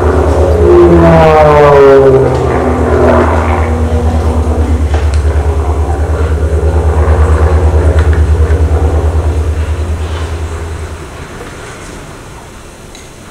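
Propeller airplane engine: a loud, pulsing low drone whose pitch swoops up and down in the first few seconds, as in stunt flying. It fades away about eleven seconds in.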